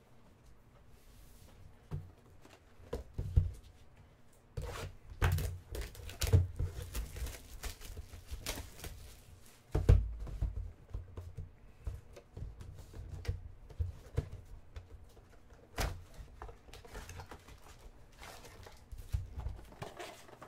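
Cardboard trading-card boxes and foil packs being handled and set down on a table: scattered knocks, rustles and thumps, the loudest about ten seconds in.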